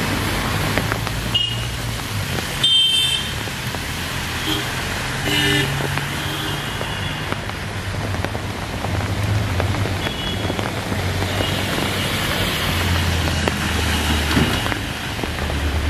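Rain falling with road traffic going by: a steady low engine hum that swells and fades as vehicles pass, and short horn toots now and then.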